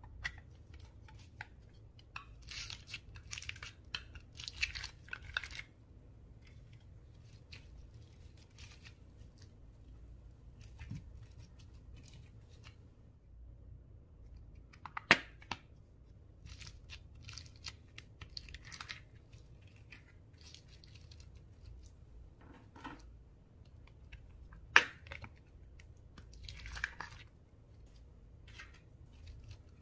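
Slime being worked by hand: stretched, squished and pulled apart, giving irregular runs of sticky crackling and tearing. Two sharp pops stand out, one about halfway through and one near the end.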